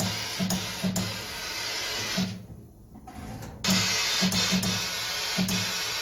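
Background music with a steady drum beat and guitar, which drops out briefly about two and a half seconds in and comes back louder about a second later.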